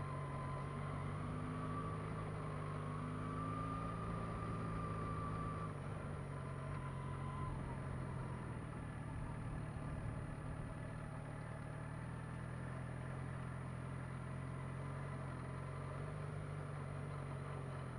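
Sport streetbike's engine running steadily at low revs as the bike rolls slowly along, with no revving.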